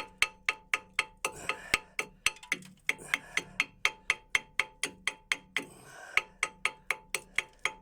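Small hammer tapping rapidly on the rusty edge of a brake drum, knocking off built-up rust in chunks, about four sharp taps a second with a brief pause about six seconds in. The rust build-up rubs on the caliper and makes the brake squeal.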